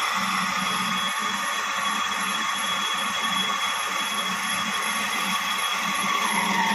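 Metal-turning lathe running with its cutting tool taking a cut on a spinning pipe: a steady hiss of cutting over the machine's hum, with a high ringing tone that dips slightly in pitch near the end.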